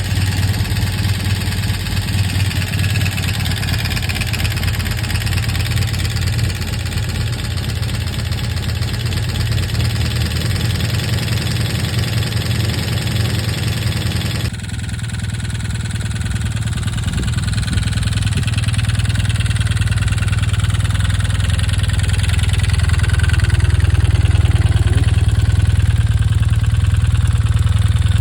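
1983 Honda CM450's parallel-twin engine running at idle with the horrible knocking noise that is its fault. The sound changes abruptly about halfway through, as at a cut between two recordings.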